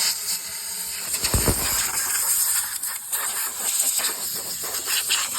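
Steady spraying hiss while the removed air-cooled VW engine is being cleaned, with one low thump about a second and a half in.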